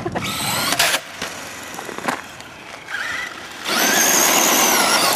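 Traxxas Stampede RC monster truck's brushless electric motor whining high under throttle, with its tyres on loose gravel, in two loud stretches: about the first second and again over the last second and a half, quieter in between.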